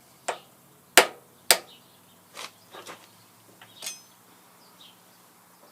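Sharp metal taps and clinks of hand tools against steel gearbox parts: a few spaced strikes, the two loudest about one and one and a half seconds in, then softer clinks.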